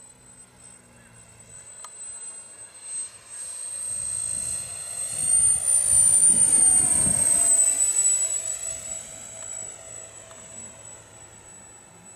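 Electric ducted fan of a 3D-printed RC model Boeing X-32 jet making a low fly-by. A high whine grows to its loudest about six seconds in, then drops slightly in pitch and fades as the model passes and flies away.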